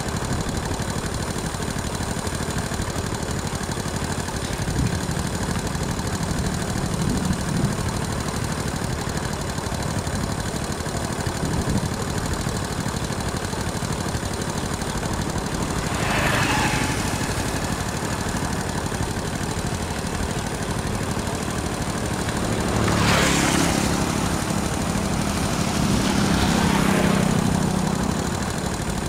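Motorbikes passing on a road over a steady engine rumble. One passes about halfway through, and two more come by in quick succession near the end, each swelling and then fading.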